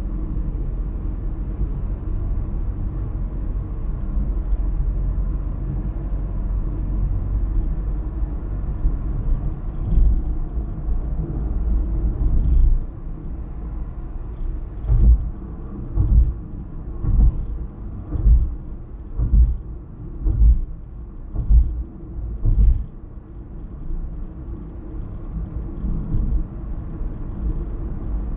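A car driving, with a steady low rumble from the road and engine. About halfway through comes a run of eight or nine low thumps, roughly one a second, then the steady rumble returns.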